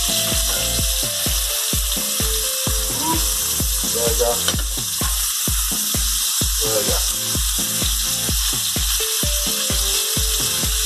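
Beef burger patties and pineapple rings sizzling steadily in a frying pan as they are flipped with a spatula. Background music with a steady beat plays underneath.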